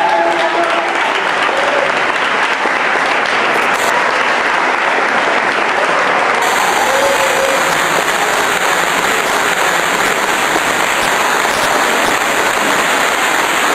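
Audience and cast applauding: steady, dense clapping that keeps an even level throughout.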